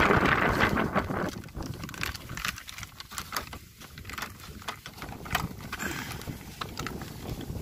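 Rustling and wind noise in the first second, then scattered light clicks and taps of plastic as the screw lid of a plastic sprayer tank is handled and opened.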